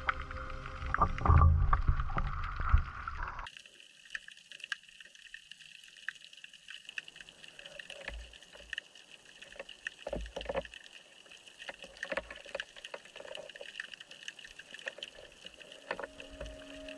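Background music that cuts off about three and a half seconds in, then underwater sound picked up through a GoPro's waterproof housing in shallow water: a faint hiss with scattered clicks and a few low thuds. Near the end a new steady musical tone comes in.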